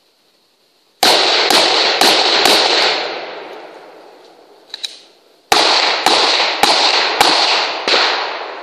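Gunshots at a steady pace: four shots about half a second apart, a brief double click, then five more shots. Each shot rings out with a long echo.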